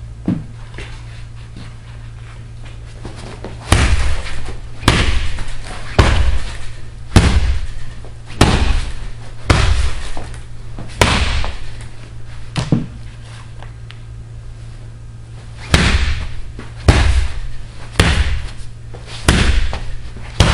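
A bat striking a hanging heavy punching bag with hard, echoing hits about once a second: eight in a row, a pause of about three seconds, then about five more.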